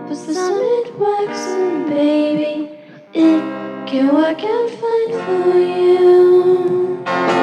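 Indie pop song: a sung vocal melody over guitar and backing instruments, with a brief drop in level about three seconds in and a fuller, louder passage coming in near the end.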